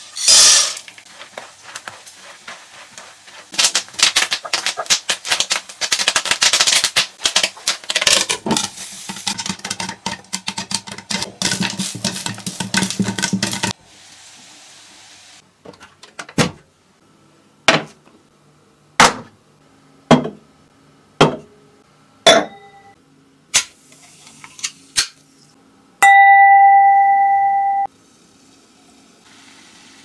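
A spatula scrapes and stirs in a nonstick wok, with dense crackly sizzling through the first half. Then come about nine sharp clicks roughly a second apart, followed by a steady two-second electronic beep.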